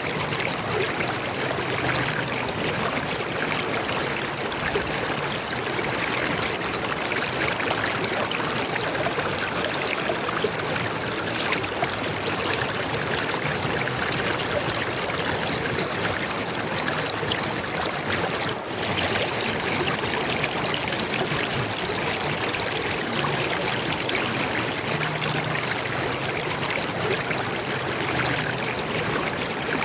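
Steady flowing water, like a stream, a continuous even rush with a momentary drop in level about two-thirds of the way through.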